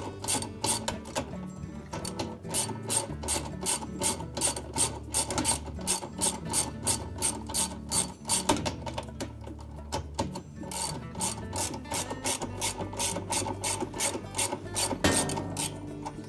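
Hand ratchet with a 7/16-inch socket clicking rapidly and evenly, about four clicks a second with a few short pauses, as it backs out the center bolt holding a washer's dual-action agitator to its base.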